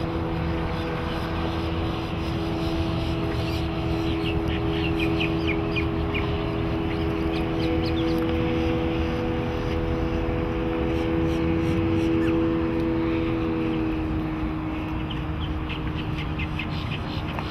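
Mercury 125 HP outboard motor running at cruising speed: a steady engine tone over a broad rush of noise. Its pitch drops slightly about fourteen seconds in.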